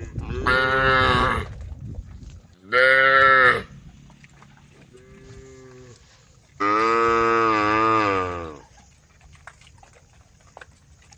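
Cows mooing, calling to the herd: three loud calls and a fainter one, the last loud call held for about two seconds.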